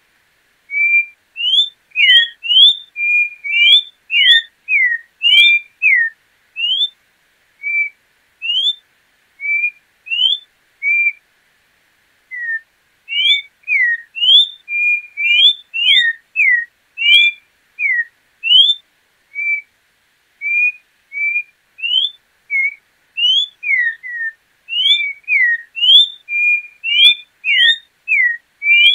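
Orange-backed troupial (João-pinto) singing: a long run of clear whistled notes, short rising and falling slurs, one or two a second, with a brief pause about twelve seconds in.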